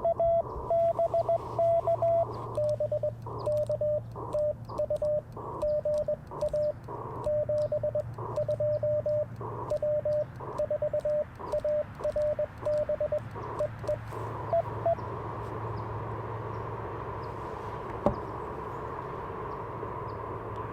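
Morse code (CW) tones from an Icom IC-705 transceiver. A strong signal keys at a slightly higher pitch for about two seconds, then a longer run of code follows at a slightly lower pitch with light clicking alongside. After about fifteen seconds the code stops, leaving steady receiver hiss.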